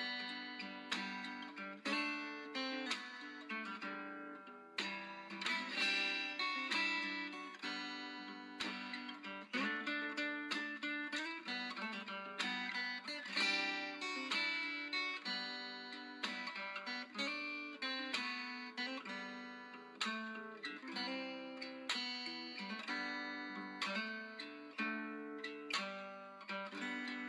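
Background music of acoustic guitar, plucked notes ringing and fading one after another.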